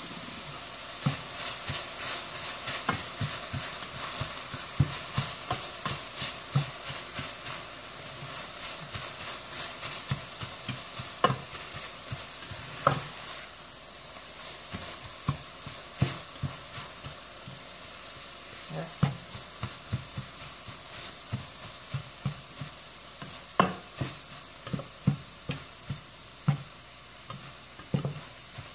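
Ground chicken sausage and diced vegetables sizzling in a stainless steel pan while a plastic spatula stirs them, with a steady hiss and frequent irregular taps of the spatula against the pan.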